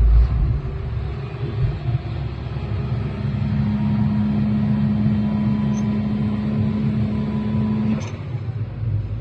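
Excavator diesel engine running steadily, a low rumble. About three seconds in, a steady hum joins it, and it cuts off with a click about eight seconds in.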